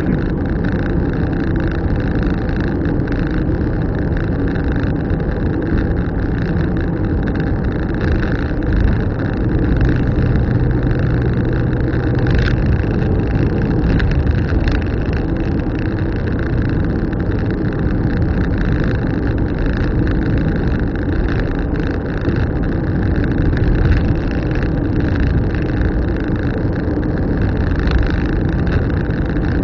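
Car driving steadily along a road: continuous engine and tyre noise, with a brief low hum about a third of the way in and a couple of faint clicks near the middle.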